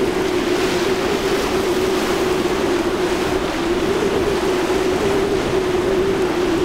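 A center-console boat's engine running at speed, a steady drone with a slight waver in pitch about halfway through, over the hiss of spray and rough water.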